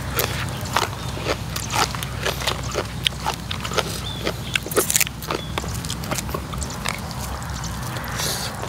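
Close-up eating sounds: chewing a mouthful of spicy raw shrimp salad and fresh leaves, with many short, irregular wet clicks and smacks.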